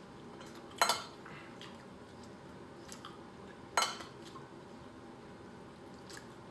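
Forks clinking against plates: two sharp clinks, about a second in and just under four seconds in, with a few faint ticks between.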